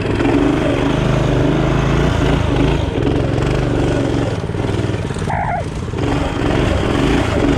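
Small mini bike engine running and revving up and down as the bike is ridden.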